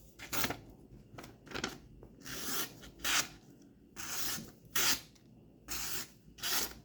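A Victorinox Hunter Pro Alox folding knife's blade slicing through paper in a series of about eight short hissing strokes. The edge cuts fairly well but catches a little in the middle, by the owner's account.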